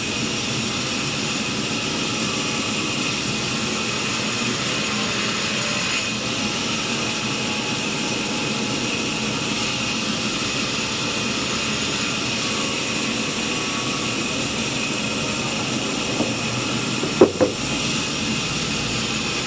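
Sawmill saw and its machinery running steadily, with a high steady whine over the noise. Two sharp knocks come close together near the end.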